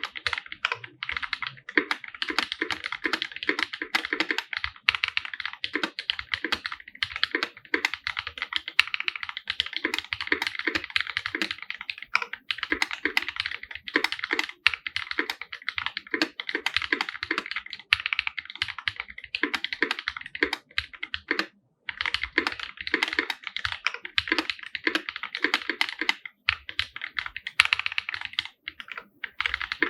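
Continuous typing on a custom 50% mechanical keyboard with an aluminium case, OG Holy Panda tactile switches and GMK Laser keycaps. The key strokes come densely, with one brief pause about two-thirds of the way through.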